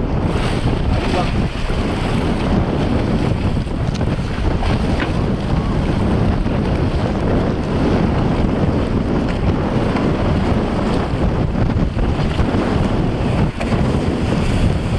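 Strong wind buffeting the microphone, a steady low rumble, with choppy water splashing.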